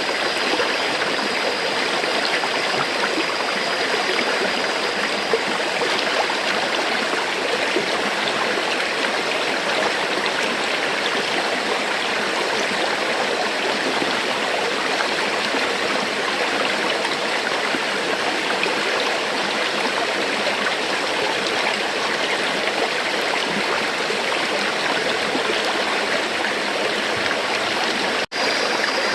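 River water flowing steadily over rocks: an even, continuous rushing with no change in strength, broken only by a momentary dropout in the sound near the end.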